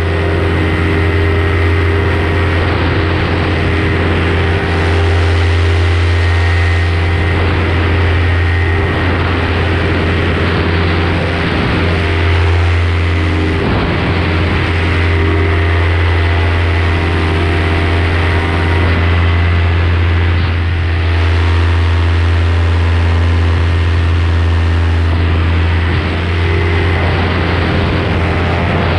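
Paramotor engine and propeller running steadily under climb power: a loud, unbroken deep drone with steady hum tones.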